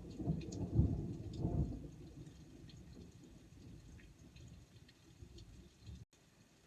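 Thunder rumbling, loudest in the first two seconds and then dying away, with faint scattered raindrop ticks.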